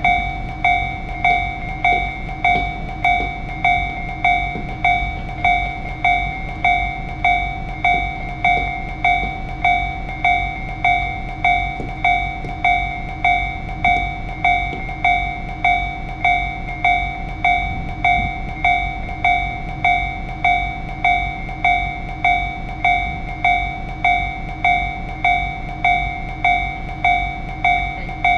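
Japanese railroad crossing alarm ringing its steady, evenly repeated clang, about one and a half strikes a second, the warning that a train is approaching, over a steady low rumble.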